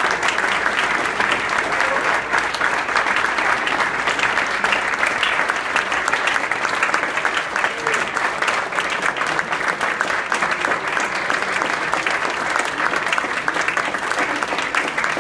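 Audience applauding: many hands clapping in a dense, unbroken patter.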